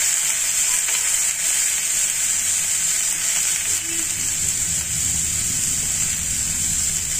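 Steady sizzle of hot oil in a non-stick frying pan, just after boiled, chopped beetroot has been added over fried peanuts and curry leaves.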